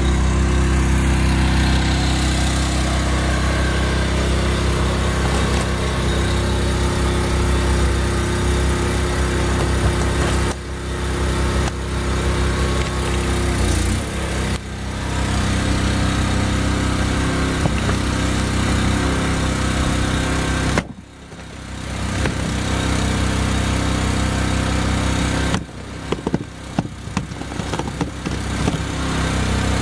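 Engine-driven high-pressure hydraulic pump running steadily, powering a pipe-bursting puller, with a few brief dips in level, the deepest about two-thirds of the way in.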